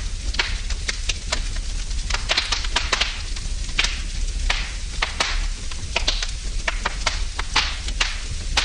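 Wood fire burning in a fireplace, crackling and popping irregularly over a low, steady rumble of the flames.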